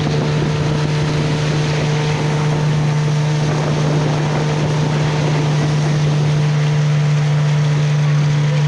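Motorboat engine running steadily at one even pitch, with the rush of water spray along the hull.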